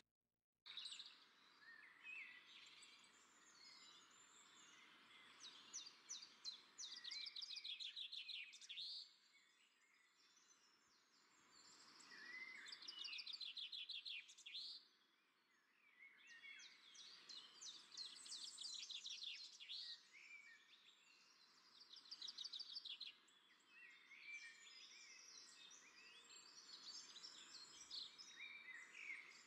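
Small birds chirping and trilling in repeated bouts of a few seconds each, faint, over a steady low background hiss.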